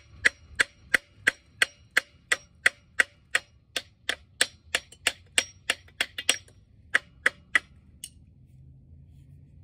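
Hammer beating on a rusted Wisconsin V4 air-cooled engine: quick, evenly spaced metal-on-metal strikes with a short ring, about three a second, stopping about eight seconds in.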